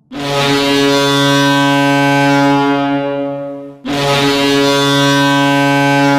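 Metallurg Magnitogorsk's arena goal horn blowing two long, loud blasts. The first begins just after the start and fades slightly, and the second begins about four seconds in.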